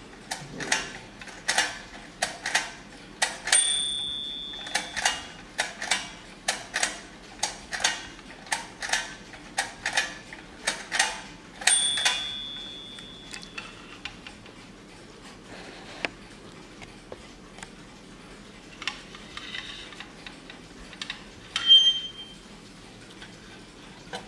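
Bandai tin toy clock's wind-up mechanism clicking about twice a second, with a bell ringing briefly twice among the clicks. In the second half the clicking fades to a few scattered clicks and one short ring near the end.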